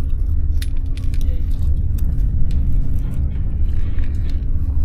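Steady low rumble and hum of a passenger ferry's engines under way, heard inside the lounge, with a few small clicks scattered through it.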